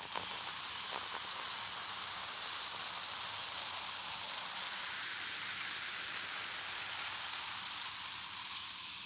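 Champagne fizzing: a steady, high hiss of bubbles.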